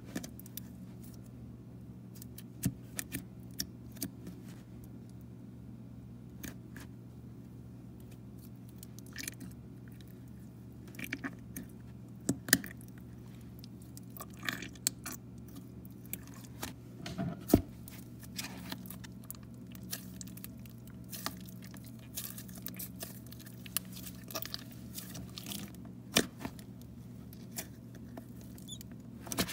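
Thick, soft white slime being poked, stretched and folded by fingers in its plastic tub, giving scattered small clicks, crackles and squishes over a steady low hum.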